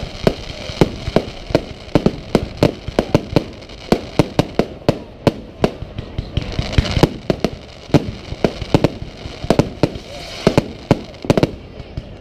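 Aerial firework shells bursting in a rapid, irregular barrage of sharp bangs, several a second, throughout.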